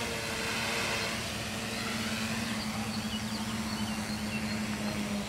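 Brushless electric motors and propellers of a homemade RC helicopter-plane humming at one steady low pitch that sinks slightly, then cutting off near the end as the landed craft's motors stop.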